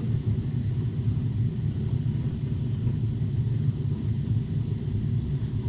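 Hot water boiler running with a steady low rumble as it fires to heat the water in the heating system.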